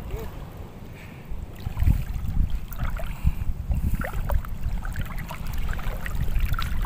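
Water sloshing and splashing in small, irregular bursts from people wading waist-deep, over a low wind rumble on the microphone.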